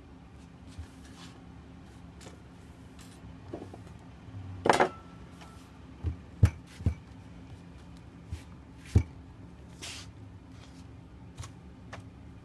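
Hands handling things on a countertop while a wet crocheted doily is pressed and smoothed flat: scattered light knocks and taps, the loudest a brief rustle a little before the middle. A steady low hum lies underneath.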